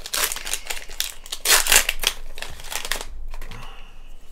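Foil wrapper of a Pokémon booster pack crinkling in the hands as the cards are slid out of it, in quick bursts that are loudest about a second and a half in and die away about three seconds in.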